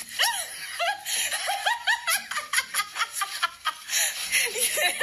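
People laughing and giggling: short high-pitched laughs, one after another.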